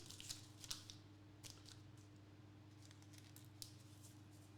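Near silence: a few faint, scattered clicks and rustles from trading cards being handled, over a steady low electrical hum.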